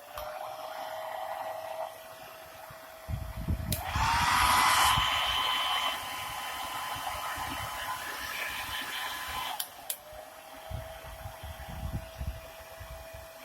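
Philips HP8126 hair dryer running with a steady motor whine and rushing air. About four seconds in, after a click, the whine steps up in pitch and the airflow gets louder: it is switched to a higher setting. A click near ten seconds brings it back to the lower whine.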